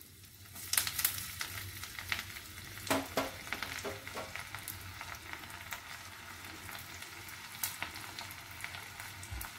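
Chopped ginger and asafoetida frying in hot ghee in a small tempering pan: a steady sizzle with many sharp crackles, starting just under a second in as the ginger goes into the ghee.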